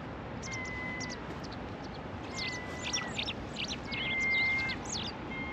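Birds calling: a drawn-out, level whistle that dips at its end, repeated every second or two, with quick high chirps in between.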